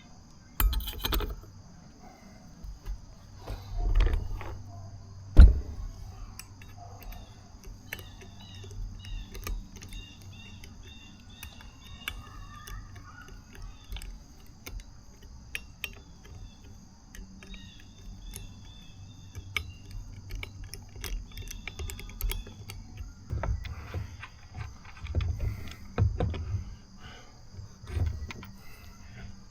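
Scattered clicks, clinks and knocks of metal scooter parts and hand tools being handled as a brake rotor is refitted to an electric scooter wheel, with one sharp knock about five seconds in and a busier run of knocks near the end.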